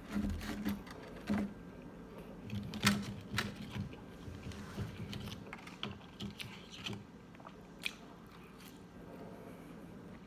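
Close-up eating sounds: biting and chewing crunchy fried chicken tenders, with irregular crisp crunches that come thickest in the first few seconds and grow sparser after that.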